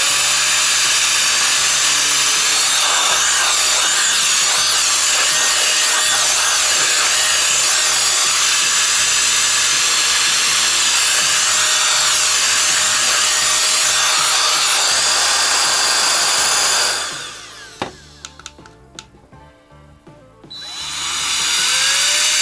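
ICANZUO TAD06 cordless electric air duster blowing a steady jet of air at a computer case fan. It cuts out about 17 seconds in, then starts again about three seconds later, its whine rising as the motor spins up.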